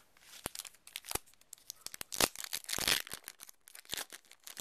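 A Yu-Gi-Oh booster pack's foil wrapper crinkling and tearing as it is picked up and opened: a string of crackles, with the loudest tearing in the middle.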